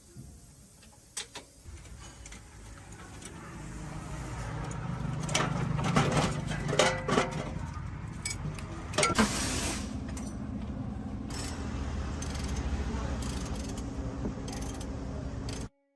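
A vehicle engine running with a low steady rumble that builds up over the first few seconds, with a run of metal clinks and knocks in the middle. It cuts off abruptly near the end.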